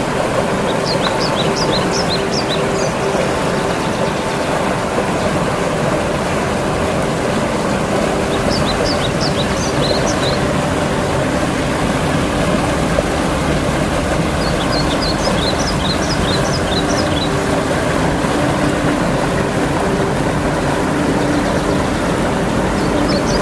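River water rushing steadily over its bed. A small bird repeats a short song of rapid high chirps four times, about every seven seconds.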